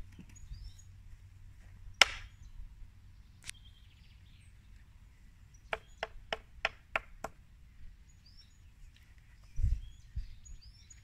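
Small scissors snipping through a cloth sail: a sharp snip about two seconds in, another a moment later, then a quick run of six snips at about four a second. A dull bump near the end, with faint bird chirps behind.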